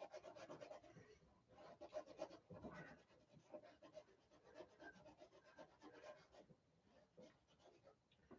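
Faint scratching and rubbing of a paintbrush worked over a canvas with acrylic paint, many quick strokes in short runs that thin out near the end.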